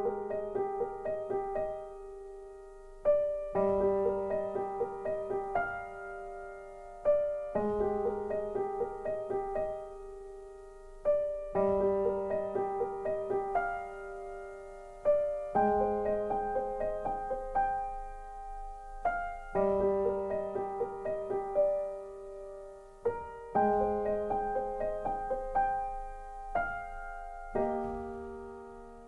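Background piano music: a gentle phrase of quick repeated notes over a held bass note, starting afresh about every four seconds and fading between.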